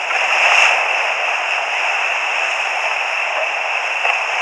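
Whitewater rapids rushing as a steady hiss, with water splashing over the helmet camera in the first second.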